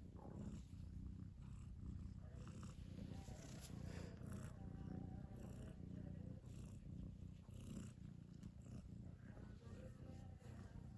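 A domestic cat's faint, low, steady rumble.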